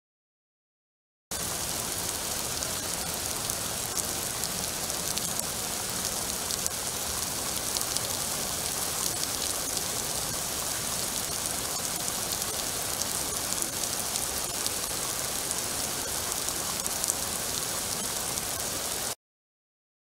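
Steady rain falling: an even hiss dotted with many small drop ticks. It starts abruptly about a second in and cuts off abruptly near the end.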